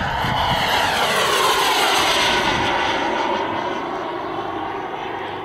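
Turbine engine of a giant-scale RC BAE Hawk jet making a low flyby, its whine swelling to a peak about two seconds in and then fading as the jet climbs away.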